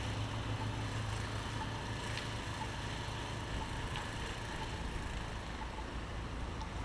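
Blizzard wind blowing steadily, with a low steady hum underneath.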